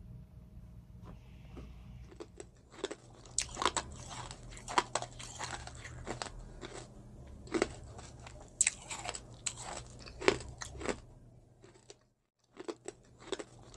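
Close-miked crunchy biting and chewing: sharp, irregular crunches starting about two seconds in, with a brief pause near the end.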